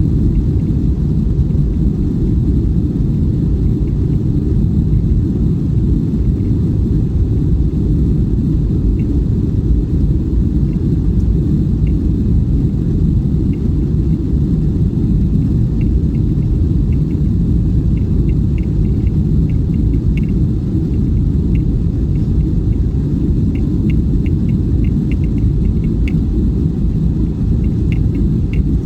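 Airbus A320 cabin noise: a steady, loud low rumble of the engines and airframe heard from inside the passenger cabin, with faint scattered light ticks or rattles.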